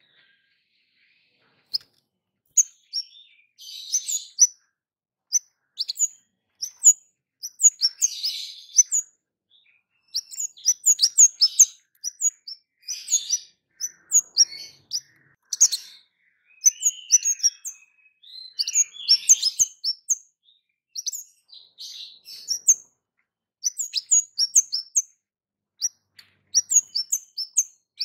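Caged kemade songbird calling busily: runs of short, sharp, high-pitched 'cit' chirps mixed with raspy, buzzing 'keres' notes, in bursts with brief pauses between.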